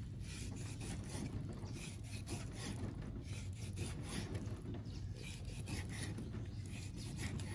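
Kitchen knife slicing boiled pork belly against a wooden chopping board: a steady run of short sawing, scraping strokes, about three a second, over a low steady hum.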